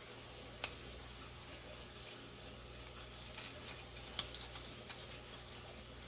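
Faint clicks and taps of spice containers and lids being handled, with a short scratchy rustle about three and a half seconds in, followed by a few small ticks.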